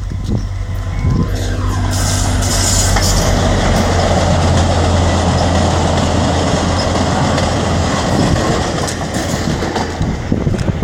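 Passenger train passing close by: a loud continuous rumble and clatter of wheels on the rails, easing slightly near the end.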